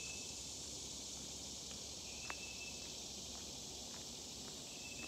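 Steady high-pitched drone of summer insects in woodland, with a short high note sounding three times. Faint footsteps on a dirt trail come closer.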